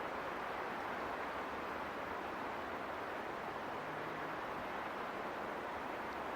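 Wind blowing steadily through trees, a constant rushing of leaves and branches with no gusts or breaks.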